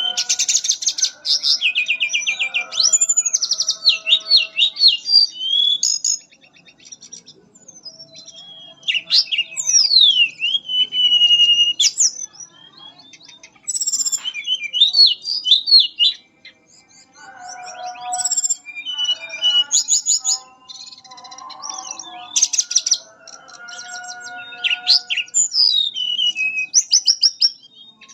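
Mangrove blue flycatcher singing: bursts of high, sweet whistled phrases with rapid trills and sliding notes, separated by short pauses. A lower warbling chatter joins in the middle stretch.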